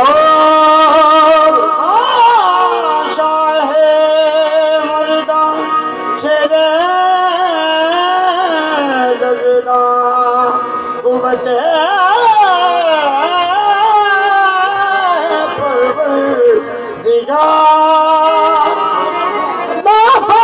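Qawwali: a male lead singer's long, wavering vocal line, sliding and ornamented, over sustained harmonium chords.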